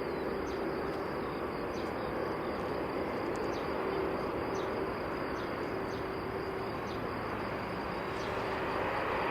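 Airbus A320 jet engines running at taxi power: a steady hum with a high steady whine. Faint bird chirps sound over it.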